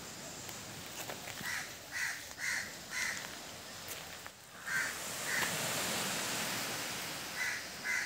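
A bird giving short harsh calls about half a second apart: a run of four, then two, then three, over a steady background hiss.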